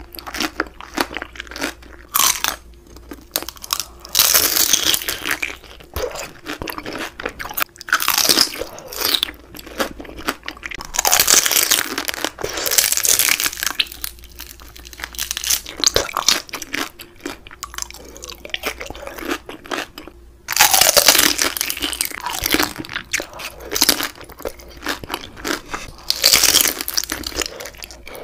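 Close-up crunching and chewing of crispy deep-fried beef large intestine (daechang): loud crackly crunching bites every few seconds, with quieter chewing between.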